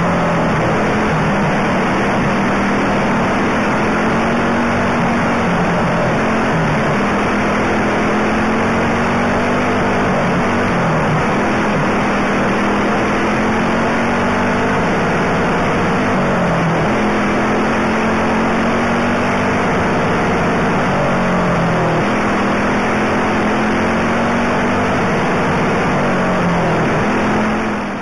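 Racing go-kart engine running hard close by, its pitch dipping about every five or six seconds and climbing back as the throttle comes off and on again, with other karts' engines running alongside.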